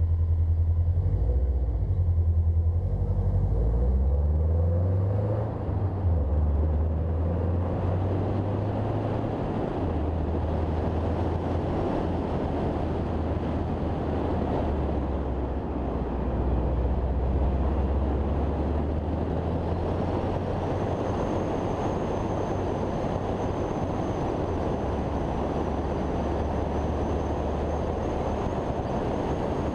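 A car driving along a winding road: the engine running under steady heavy wind and road noise on an outside-mounted camera. A faint high whine joins about two-thirds of the way through.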